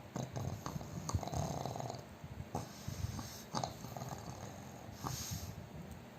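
Overweight pug snoring loudly in its sleep: rough, rattling snores with sharp snorty catches scattered through, typical of a flat-faced breed's short airway.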